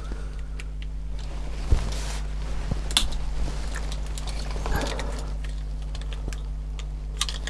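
Soft handling noises of hands pressing a taped electronics unit onto a plastic RC car chassis and moving its wires, with a few light clicks, over a steady low hum.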